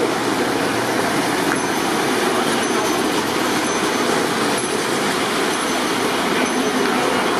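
Steady, even din of an indoor train-show hall, with model trains running on the layout.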